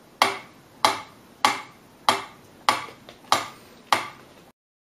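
Mechanical pyramid metronome ticking: seven sharp, evenly spaced clicks, about 96 beats a minute, each ringing briefly. The ticking cuts off abruptly near the end.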